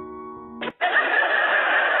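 Soft piano music stops, and less than a second in a loud, dense laughing sound effect cuts in abruptly and carries on.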